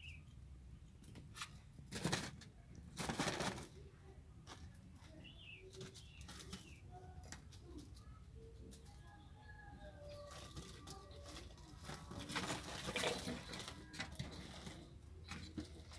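Kittens scrambling on a woven plastic tarp, rustling and crinkling it in several loud bursts, a few seconds in and again near the end, with faint short chirping calls in between.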